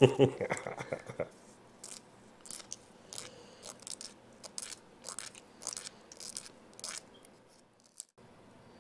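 Nail file rasping on a capuchin monkey's toenails: short, irregular scratchy strokes, roughly one or two a second, after a brief voice at the start.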